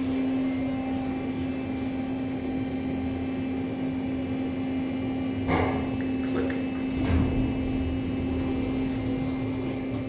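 A KONE EcoDisc elevator runs with a steady hum and a constant held tone. Two short knocks come about five and a half and seven seconds in, as the car stops and its doors open.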